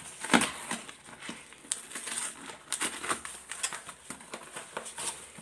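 Brown paper mailer envelope rustling and crinkling as hands work it open and slide a small boxed item out, in irregular crackles with a sharper one just after the start.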